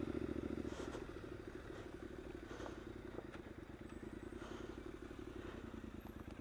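2015 Triumph Scrambler's air-cooled parallel-twin engine running at low, steady revs with a rapid, even pulse while the bike is ridden slowly off-road.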